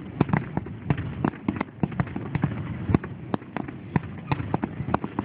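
Starmine fireworks barrage heard from a distance: a rapid, irregular string of sharp bangs and pops, several a second.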